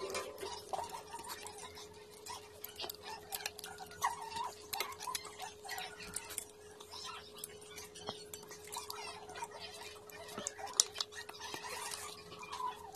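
Cooked shellfish (red claws and shrimp) being cracked and picked apart by hand: a run of irregular small clicks and crackles, over a faint steady hum.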